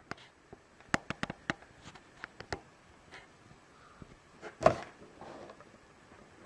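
Cardboard figure box being handled: a quick run of sharp clicks and taps, then a louder thump with a brief rustle about two-thirds of the way through.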